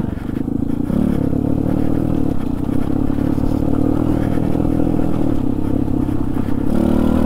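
Trailmaster TM29 pit bike's small four-stroke engine running on the trail at low, fairly steady revs, picking up a little about a second in and again near the end.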